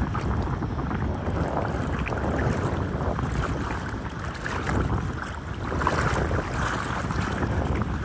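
Legs wading through thigh-deep seawater, sloshing and splashing with each step, with wind buffeting the microphone throughout.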